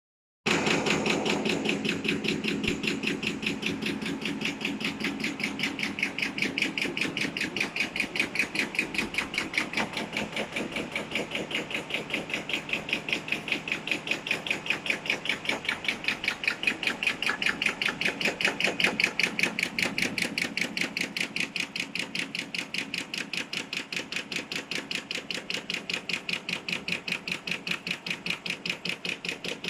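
Label high-speed cutting machine running, its cutter chopping printed PET sleeve-label film into lengths with a rapid, even clacking of several strokes a second. The clacking starts about half a second in and gets a little softer in the last third.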